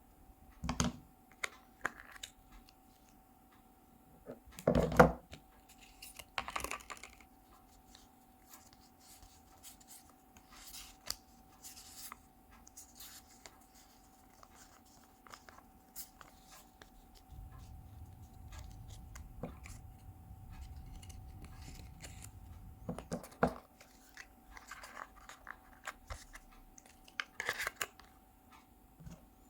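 Packaging being handled during an iPhone unboxing: scattered taps, clicks, scrapes and short tearing or rustling sounds of cardboard and paper. The loudest is a knock about five seconds in, and there is a low rumble of handling for several seconds past the middle, over a faint steady hum.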